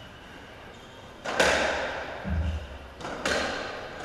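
Racketball rally: two sharp cracks of the ball being struck and hitting the court wall, about two seconds apart, each a quick pair of hits that rings in the enclosed court, with a low thud between them.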